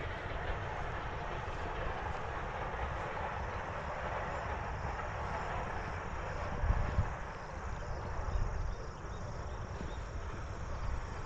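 Wind rumbling on an outdoor microphone with a steady rush, swelling briefly about seven seconds in and again a little later.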